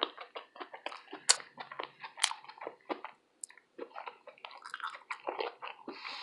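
A person chewing fried food close to the microphone: irregular wet mouth clicks and smacks, with two sharper clicks about a second and two seconds in.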